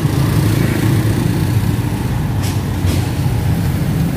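Street traffic: a motorcycle engine running as it passes close by, over a steady low rumble of vehicles. Two short hisses about half a second apart come near the middle.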